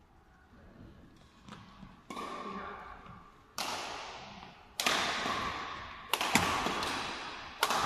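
Badminton rackets striking a shuttlecock in a rally: sharp cracks about every second and a half, getting louder through the rally, each ringing on in the echo of a large sports hall.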